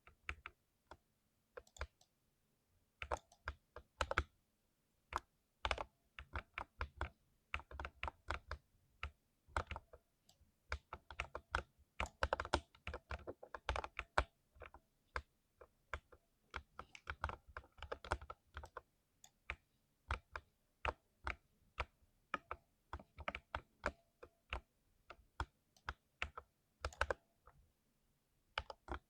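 Typing on a mechanical keyboard with lubed switches: irregular runs of keystrokes with short pauses between them, busiest in the middle.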